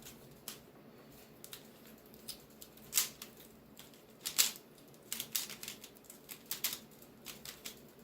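YuLong V2 magnetic Pyraminx being turned fast in a speedsolve: irregular plastic clicks and clacks as its layers snap round, with the sharpest clicks about three and four and a half seconds in and a quick run of turns a little later.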